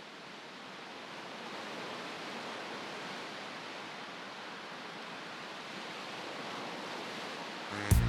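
Steady rushing of ocean surf, slowly growing louder. Music with sharp beats and pitched tones comes in abruptly just before the end.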